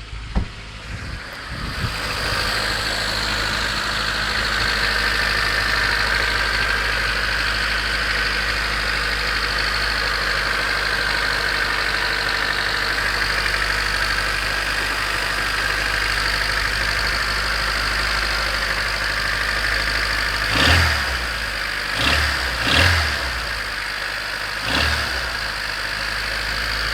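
1991 Honda CRX's D15B2 four-cylinder engine idling after a cold start at 300,000 miles, with a steady mechanical racket. The owner can't tell whether it is rod knock, piston slap or valve clatter. Near the end come a few short, louder bursts.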